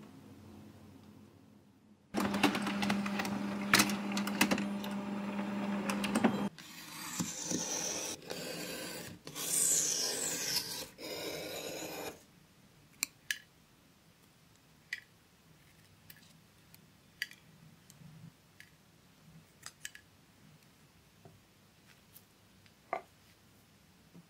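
Desktop printer running for about ten seconds: a steady motor hum from about two seconds in, then uneven whirring with falling high whines, stopping suddenly. Afterwards, faint scattered clicks and taps of paper handled and cut against a steel ruler on a cutting mat.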